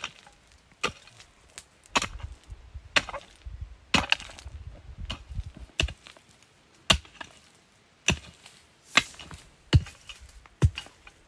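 Chopping into wood with an edged tool, a string of sharp separate blows at an uneven pace of about one a second, as ground is cleared of brush and branches.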